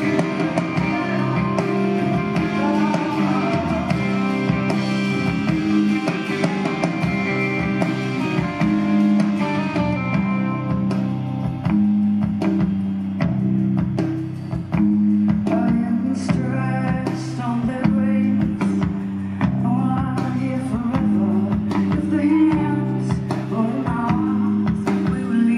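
Live band music: electric guitar and drums with a woman singing.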